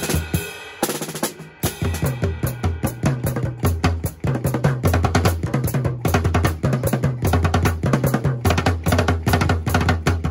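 A TAMA Cocktail-JAM compact acoustic drum kit played in a busy groove, kick pedal and drums struck many times a second, over a backing track with a low bass line.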